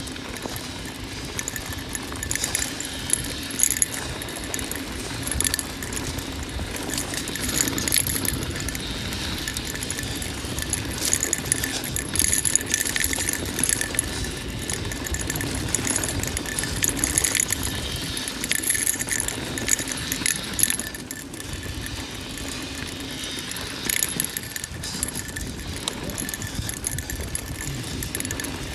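Mountain bike riding fast down dirt singletrack: a steady rush of tyre and wind noise under constant rattling and clanking of the chain and frame, with sharper clatters every few seconds as the bike is jolted.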